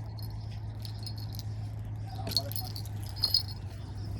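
Small bell clipped to a fishing rod tip jingling in short shakes, twice in the second half, over a steady low hum: a fish is pulling at the bait.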